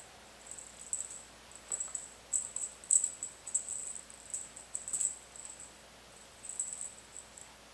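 Small blue toy bird chirping electronically: short, high-pitched chirps in irregular clusters, set off as the kittens play with it.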